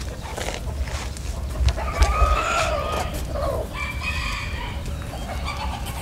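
A rooster crows about two seconds in, one drawn-out call lasting roughly a second and a half, followed by a shorter, higher call a second later. A steady low rumble runs beneath.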